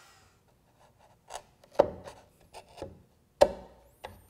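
Bench chisel pressed down into hardwood along the edge of a hinge-mortise jig, scoring the corners of a freshly routed mortise. It makes a series of short, sharp crunches and taps, about seven over three seconds, starting about a second in.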